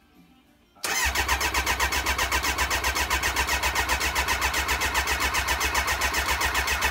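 Kawasaki ZX-9R inline-four turning over on its electric starter without firing: a fast, even beat of about nine pulses a second that starts suddenly about a second in and cuts off after some six seconds. It cranks easily but won't catch, with fuel reaching the exhaust, which the owner takes to point at the spark plugs first.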